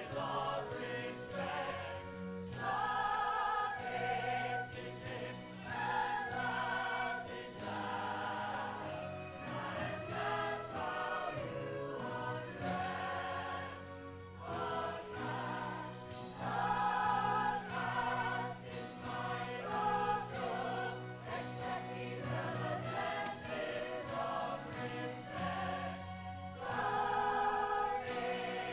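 A stage musical cast singing together in chorus over instrumental accompaniment, in sustained phrases with vibrato.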